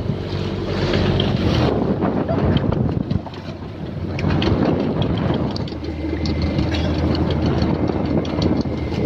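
Fishing boat's engine running steadily, with wind buffeting the microphone and scattered light knocks and clicks on deck.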